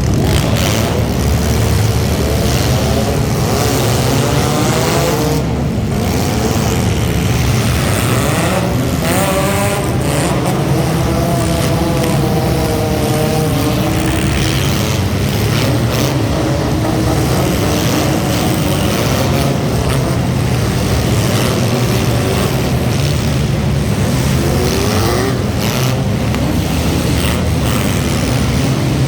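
Front-wheel-drive race car engines running loud and continuously, their pitch rising and falling as they rev through the laps.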